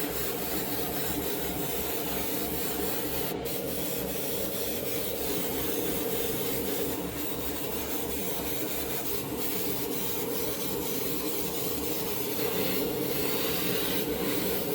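Steady rubbing, sanding-like noise, with a regular low pulse beneath it.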